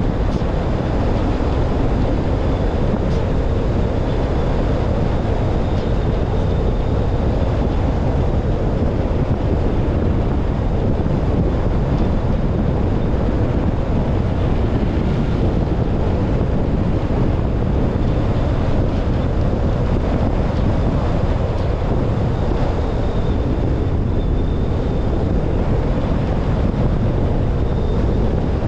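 Steady wind buffeting a GoPro camera's microphone on the roof of a moving car, over the rumble of the car's tyres on the road.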